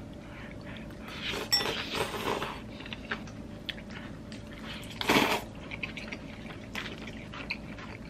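A person slurping up bibim-myeon noodles and chewing with wet mouth clicks. Two louder slurps come about a second and a half in and again about five seconds in.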